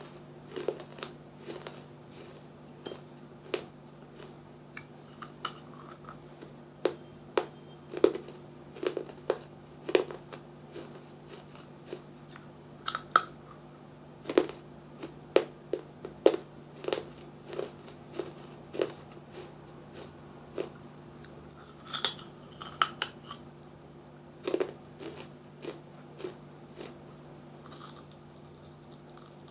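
Close-up crunching of a small baked-clay diya being bitten and chewed: irregular sharp crunches, sometimes several in quick succession, over a faint steady hum.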